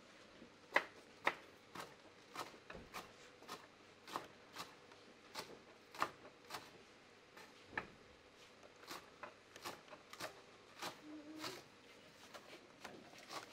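Chef's knife slicing spring onions on a white plastic cutting board: a steady run of sharp knocks, about two a second, each time the blade meets the board.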